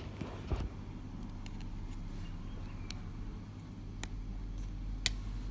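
A steady low background hum with a few small, sharp clicks spread through it, typical of tweezers and small tools picking at the parts of an opened iPhone 8.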